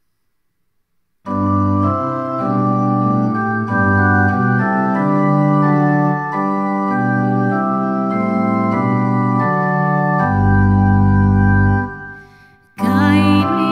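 Hymn introduction played on a Roland RD-2000 digital keyboard with an organ sound: slow, held chords that change about once a second. It starts after a second of silence and fades near the end, just before the next passage begins.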